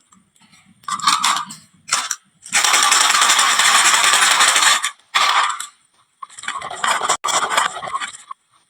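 Marbles rolling and clattering down a wooden marble-run slope and dropping into toy trucks. Short bursts of rattling about a second in, a long continuous rattle from about two and a half to five seconds, and more clattering after six seconds.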